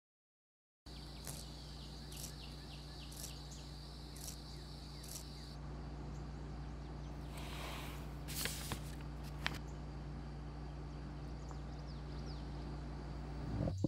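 Faint room ambience: a steady low hum with a thin high whine and soft ticks about once a second that stop about five seconds in. A few short scratches and clicks follow, from a pencil on notebook paper.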